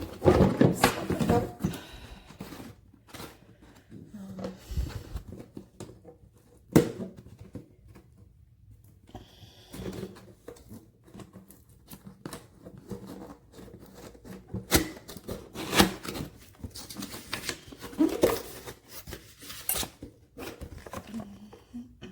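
Product packaging being handled and opened by hand: cardboard and plastic rustling and crinkling, with scattered sharp clicks and knocks, the sharpest about seven and fifteen seconds in.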